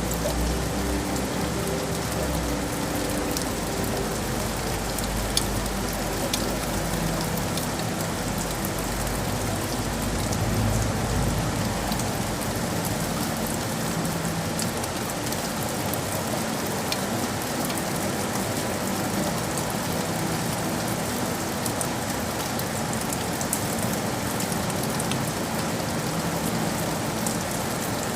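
Steady rain falling on hard surfaces, a dense even hiss with scattered drops ticking through it. A low rumble underneath fades out about halfway through.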